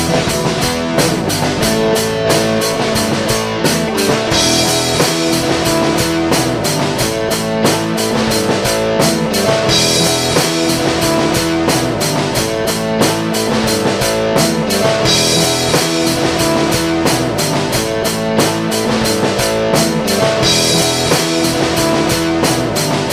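Background rock music with a steady drum beat, guitar and bass.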